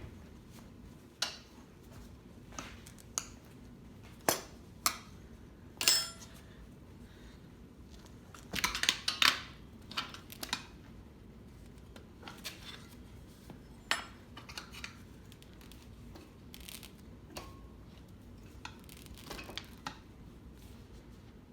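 Metal tire spoons clinking and clanking against the wheel rim and tire stand while the tire bead is pried off a dirt bike wheel: a series of separate sharp metallic clinks, some ringing briefly, with a busier run of clatter about nine seconds in.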